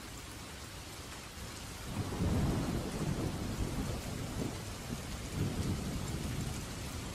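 Steady rain falling, joined about two seconds in by a low, uneven rumble of thunder that keeps rolling.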